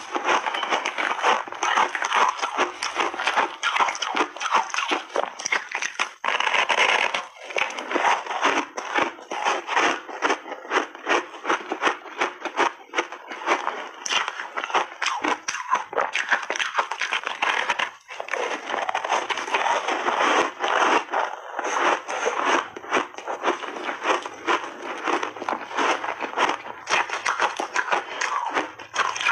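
Close-miked crunching and chewing of a frozen ice block coated in milk powder: a dense, unbroken run of crisp cracks and crunches as big bites are bitten off and chewed.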